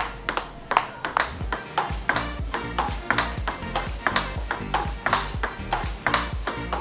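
Table tennis rally: the ball clicking sharply off the ebony-carbon blade and the table, two or three quick, uneven hits a second, over background music with a steady bass line.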